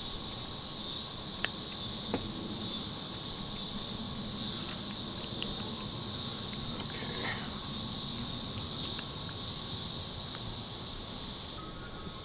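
Insects buzzing in a steady, high, finely pulsing drone, with a few faint clicks early on; the buzzing cuts off suddenly near the end.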